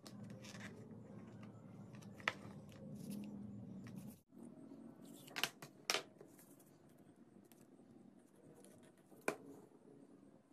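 Quiet handling of a PVC pipe, a bamboo ring and a plastic glue bottle on a tabletop, with a few sharp clicks and taps. The sound drops out for an instant a little past the middle.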